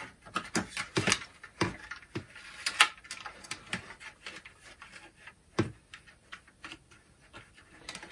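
Irregular clicks, taps and rustles of plastic fan-housing parts and motor wiring being handled during disassembly, with a few sharper knocks about a second in, near the middle and just before six seconds.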